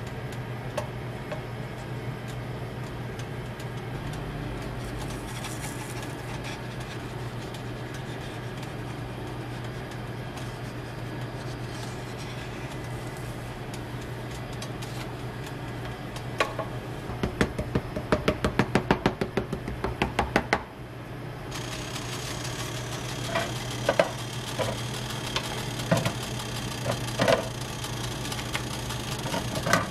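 Crepe-stall work sounds over a steady low hum: a rapid run of sharp clicks lasting about three seconds just past the middle, then scattered light knocks of the wooden spatula and a metal tray as the crepe is handled.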